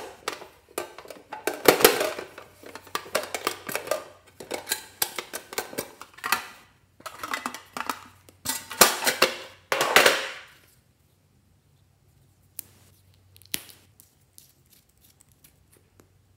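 Crackling and clicking as a mouse-shaped tin box is handled and opened by hand. The sound comes in dense bursts for about ten seconds, then only a few scattered clicks.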